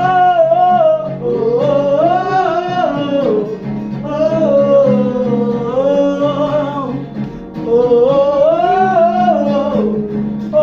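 Gospel prayer song: a voice sings long wordless 'oh' phrases that swell and bend up and down in pitch, over a steady guitar accompaniment.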